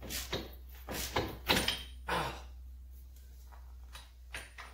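Short, irregular clicks and rasps of a half-inch-drive ratchet and socket turning out a freshly broken-loose 21 mm brake caliper bolt, mostly in the first two seconds and again near the end.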